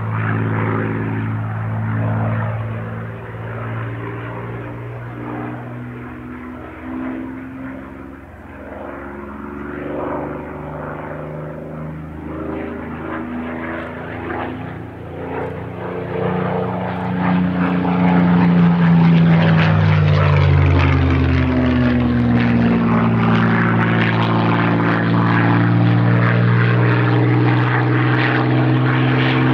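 Supermarine Spitfire Mk XVI's Packard-built Merlin V12 engine heard from the ground during a flying display. It starts as a distant drone, grows much louder about halfway through, and its pitch sweeps down and back up as the fighter dives and passes overhead.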